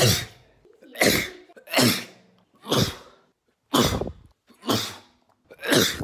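A young man sneezing over and over, about seven separate sneezes roughly a second apart, each a short sharp burst that quickly fades.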